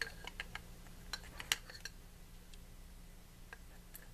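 Light metal clicks and clinks of a screwdriver against the small gears inside an autopilot drive unit's gearbox housing as they are worked out. The clicks come in a quick cluster over the first two seconds, the sharpest about a second and a half in, then only a few scattered ones.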